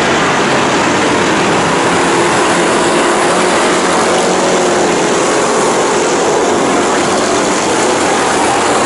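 A pack of Thunder Stock race cars running at speed on a dirt oval, their engines blending into one steady, loud noise.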